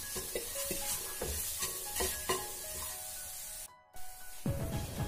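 Spices and onion paste sizzling in oil in a frying pan while a wooden spatula stirs and scrapes them across the pan in repeated short strokes: masala being sautéed. The sound cuts off abruptly a little before four seconds in.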